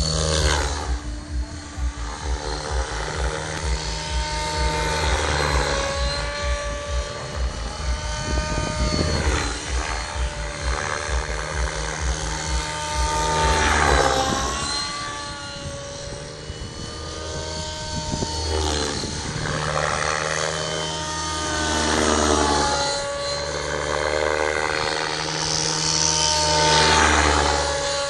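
Align T-Rex 600 Pro radio-controlled helicopter flying aerobatics. Its rotor and drive whine rises and falls in pitch as it swoops about, with repeated surges of blade whoosh during the hard manoeuvres.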